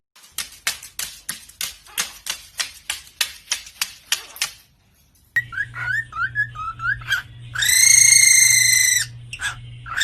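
A bird first makes a rapid series of sharp taps, about four a second, like a beak pecking on a hard surface. It then gives quick warbling chirps and a loud, steady, high-pitched whistle, followed by a second shorter whistle near the end. A low electrical hum sits under the chirps and whistles.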